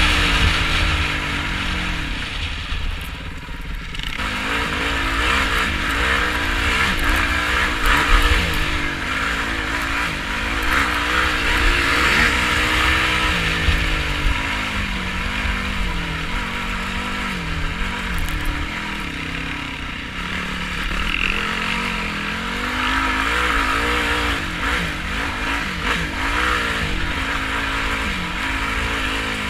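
Yamaha YFZ450R quad's single-cylinder four-stroke engine, its revs rising and falling constantly as it is ridden, with wind buffeting the microphone.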